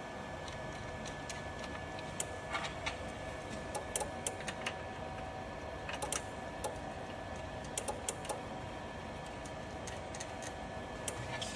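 Irregular sharp clicks and light taps of hand work on a hydraulic paper cutter during a blade change, over a steady hum.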